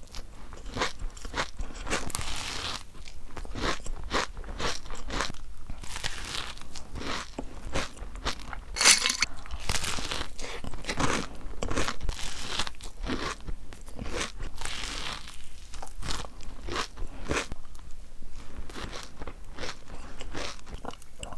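A person biting into and chewing crunchy food, a long run of crisp crunches one after another, with the sharpest crunch about nine seconds in.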